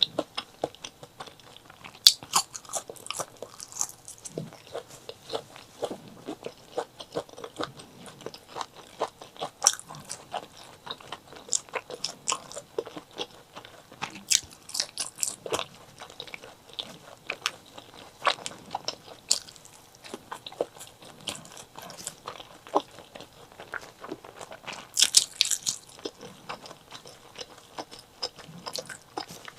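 Mouth eating sounds of chili and white rice: a steady run of short crunching bites and chewing, with a louder burst of crunches near the end.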